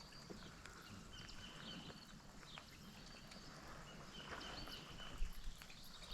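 Faint bird calls over quiet outdoor ambience, with a few soft knocks, the loudest about five seconds in.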